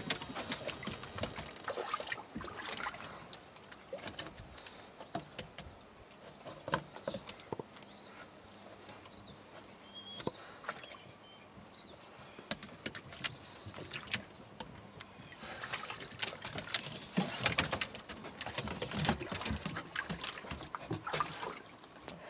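Water splashing and sloshing in a hot tub as dogs paddle and scramble in it, in irregular bursts that thin out in the middle and get busier again later on.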